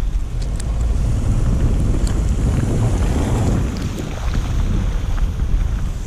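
Wind buffeting the microphone of a camera on a moving vehicle: a steady low rumble that swells around the middle, with scattered faint ticks.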